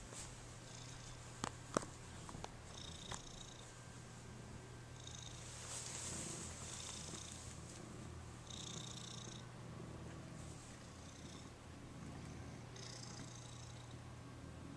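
A relaxed domestic cat purring steadily, the purr swelling and easing with each breath every second or two. A couple of sharp clicks sound about one and a half seconds in.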